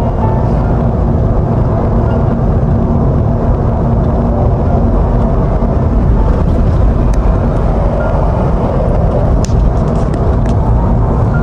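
Steady road and engine rumble inside the cabin of a moving car.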